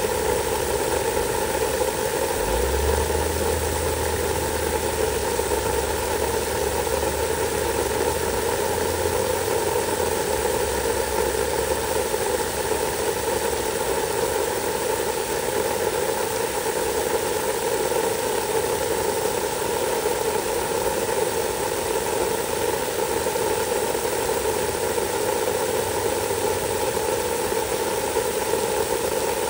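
A hose sprays water onto mulch over a steady, even machine-like running noise. A low hum comes in about two and a half seconds in and drops away around twelve seconds in.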